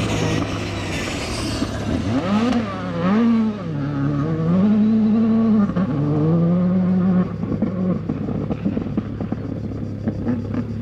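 Skoda Fabia R5 rally car's turbocharged four-cylinder engine revving hard on gravel, its pitch climbing and dropping again and again through gear changes, then fading as the car moves off, with scattered light clicks near the end.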